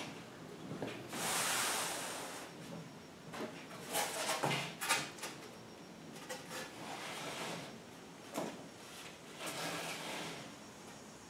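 Rigid foam insulation board and a coroplast plastic panel being handled and moved on a tabletop: an irregular run of scrapes, rubs and light knocks, with a longer sliding scrape about a second in.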